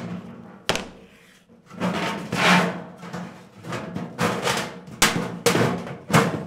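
Galvanized sheet-metal plenum box booming and popping as its thin sides are handled and pressed, with sharp metallic knocks. A snap lock punch crimps the end-cap edge about a second in, and several more knocks come near the end.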